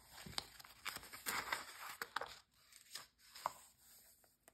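A glossy magazine page being turned: a papery swish and crinkle between about one and two and a half seconds in, with a few short clicks from fingers or nails on the paper.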